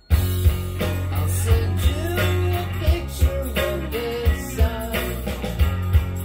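A song with singing over a steady bass beat, played from a record on a turntable through the room's speakers; the music comes in abruptly just after the start and then plays on at full level.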